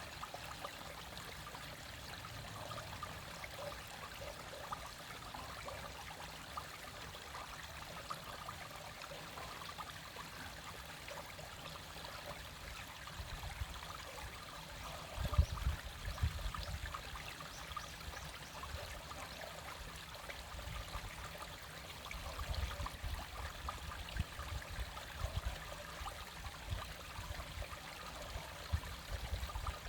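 Small clear stream flowing and trickling in midwinter, a steady babbling wash. Bursts of low rumble come in about halfway through and again later.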